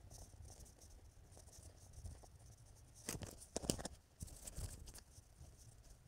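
Wind rumbling on the microphone of a camera mounted on a moving bicycle, with a short cluster of sharp knocks and rattles about halfway through, as from the bicycle jolting over bumps.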